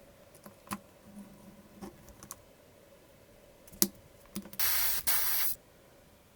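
A few light clicks and taps, then two short hissing sprays close together, each about half a second long, like an aerosol spray can being pressed twice.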